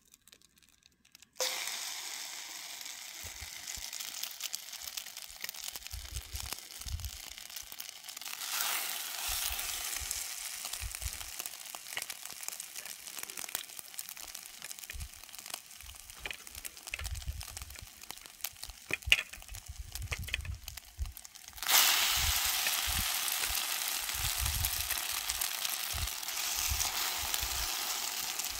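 Egg-soaked cinnamon-raisin bread frying in a cast-iron skillet, sizzling steadily. The sizzle starts about a second in, grows louder around 9 seconds and sharply louder about 22 seconds in, as more slices go into the hot pan, with a few low thumps underneath.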